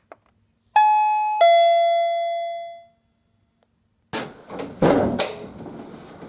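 Doorbell chime ringing a two-note ding-dong, high then low, each note fading out. About four seconds in come the clicks, knocks and rattle of the front door being opened.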